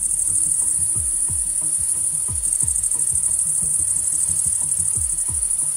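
An insect chorus chirring steadily in a high-pitched, finely pulsing band, with no break.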